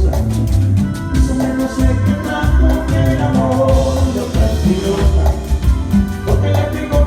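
Latin dance music with singing and a steady, bass-heavy beat, played loud through a sonido's sound system during a sound check.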